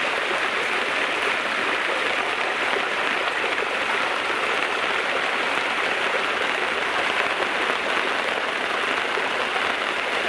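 Steady rushing of rainwater runoff flowing down a street gutter along the curb, with rain falling.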